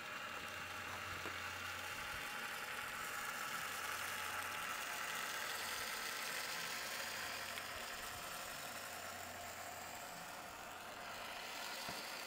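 Small LEGO Power Functions M motor and its reduction gearing whirring steadily as it drives a motorized LEGO model truck.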